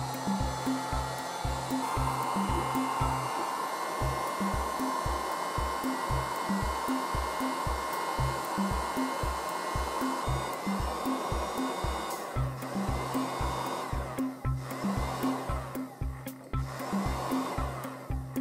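Heat gun blowing hot air into a tin can: a steady rush of fan and air that starts just after the beginning. In the last six seconds it breaks off briefly three or four times. Background music with a steady beat runs underneath.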